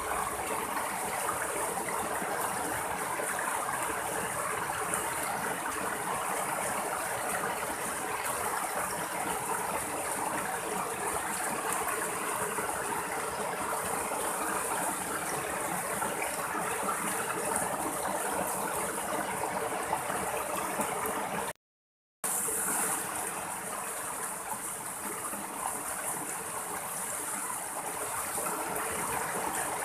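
A small rocky stream running over little cascades between boulders, a steady rushing and splashing of water. About two-thirds of the way through, it cuts out completely for about half a second, then carries on.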